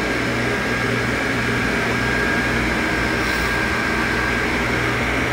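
Steady drone of a saltwater aquarium system's pumps and fans, with a low hum and a thin, steady whine running through it.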